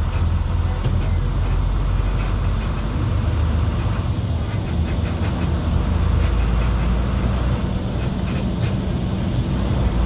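Heavy road vehicle driving: a steady low engine and road rumble, its engine note shifting about four seconds in and again near eight seconds.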